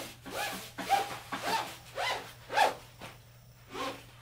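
A long blue fabric chafe-protection sleeve is pulled and bunched along a cord threaded through it. It gives a run of quick zip-like rubbing strokes, about two a second, with a short pause near the end.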